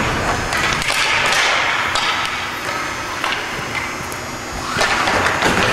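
Hockey play: scattered sharp knocks and taps of sticks and puck over a steady noisy background.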